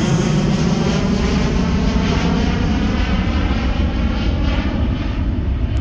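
Jet airliner passing close by, a loud steady rumble and rush of engine noise whose high hiss slowly fades toward the end.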